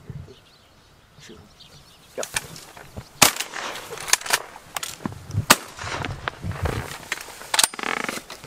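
Shotgun shots, several in quick succession over about six seconds, the loudest about three seconds in.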